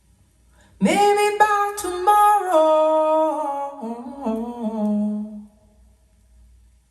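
A female singer's unaccompanied wordless hum. It swoops up in pitch about a second in, holds, then steps down note by note and fades out about five and a half seconds in.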